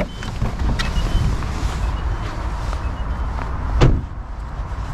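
Car running and rolling slowly, heard from inside the cabin as a steady low rumble, with a sharp thump about four seconds in.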